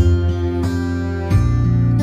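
Instrumental music led by plucked strings over a deep bass, the chord changing about one and a half seconds in.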